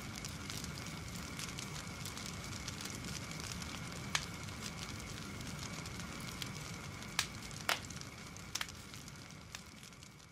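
Campfire crackling: a steady hiss with scattered sharp pops, a few louder ones in the second half, fading out near the end.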